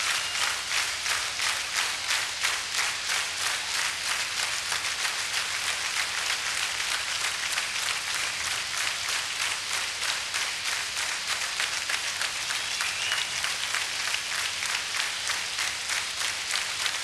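Concert crowd clapping in unison, a steady beat of about two to three claps a second.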